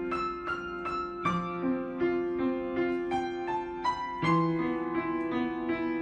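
Piano music: a melody of quickly struck notes, about three a second, over longer held low notes.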